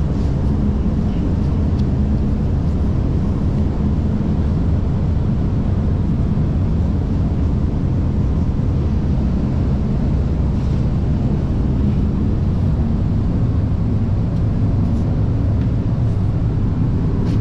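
Steady low rumble of a paint spray booth's ventilation fans running, even and unbroken.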